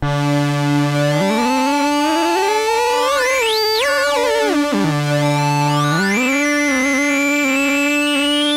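Eurorack modular synthesizer voice from a Plaits-type macro oscillator, played from a ribbon controller: a sustained buzzy tone that glides smoothly up in pitch over a couple of seconds and back down, then bends up again and wavers, over a steady higher note.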